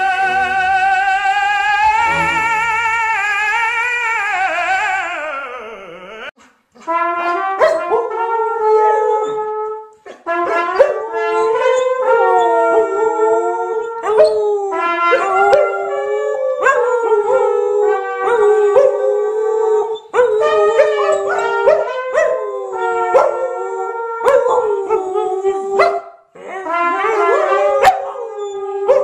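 For about the first six seconds, a long wavering pitched call, held and then sliding down in pitch. After that, two Samoyed dogs howl together in overlapping, wavering howls, broken by short pauses every few seconds.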